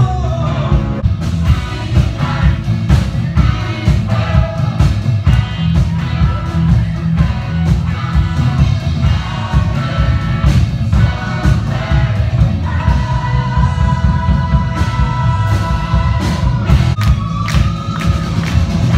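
Loud rock song with singing over a steady, heavy beat, with a long held note in the last third.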